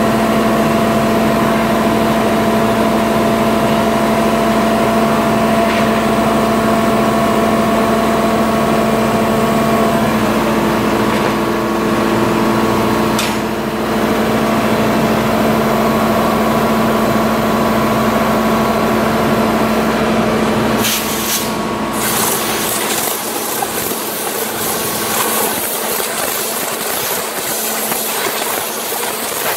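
Steady hum of shop machinery with a constant low tone. About 21 s in the hum falls away and a compressed-air blow gun hisses loudly in spurts, blowing rubber debris off a metal mold plate.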